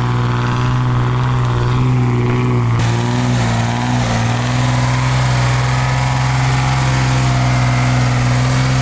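ZIL truck engine running steadily under load while towing a heavy trailer through sand, holding a constant note with a slight wobble about three seconds in. The engine is working hot, its temperature close to 100 °C.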